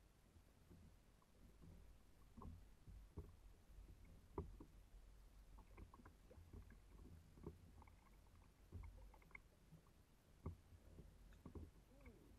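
Faint water lapping and splashing against a kayak hull, with irregular small knocks and a low rumble from wind on the microphone.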